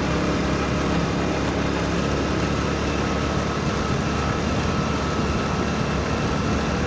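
Steady road and engine noise of a vehicle driving at speed on a motorway, heard from inside the moving vehicle, with a faint steady whine.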